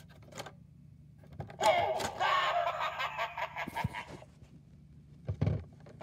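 Gemmy animated mini Cursed Coffin doorbell set off by a press of its button: a click, then after about a second and a half its spooky sound effect plays from its small speaker, voice-like and changing in pitch, with a low thump near the end as the skull rises.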